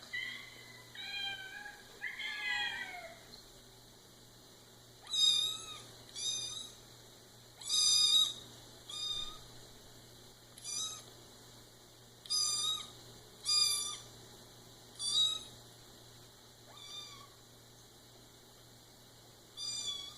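Cat meows: a few drawn-out meows that bend in pitch at first, then a run of about ten short, similar meows spaced a second or two apart.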